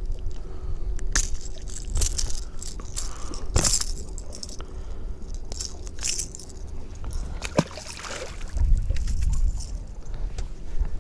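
Clicking and jingling of a lipless crankbait's treble hooks and built-in rattle as it is worked out of a bass's mouth by hand, over a steady low wind rumble on the microphone.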